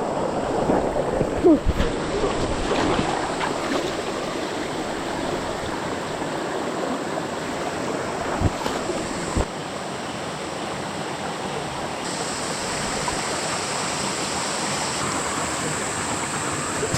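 Creek water running steadily over rocks. A few short low thumps come about two seconds in and again around eight and nine seconds.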